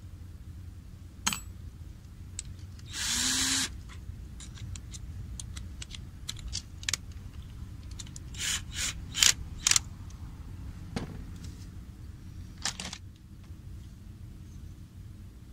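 Cordless drill run in one short burst of under a second, a few seconds in. Sharp clicks and knocks of wood pieces and tools being handled follow, the loudest a cluster around the middle.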